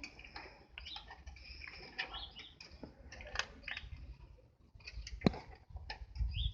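Birds chirping in short, quick calls, mixed with scattered sharp clicks and taps.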